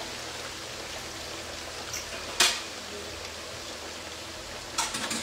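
Potato chips deep-frying in oil in a frying pan on high heat, a steady sizzle. A sharp knock sounds about halfway through, and a few lighter clicks near the end.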